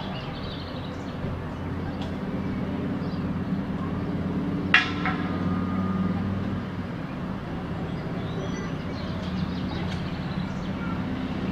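A steady low engine hum runs throughout, with faint, distant voices from the crowd. A single sharp click with a short ring comes about five seconds in.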